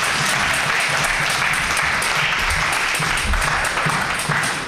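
Audience applauding, a dense steady clapping at the close of a speech.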